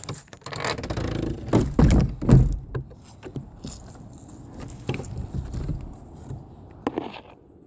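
A shed door being shut: scraping, rattling and clicks, with a few heavy thumps about two seconds in.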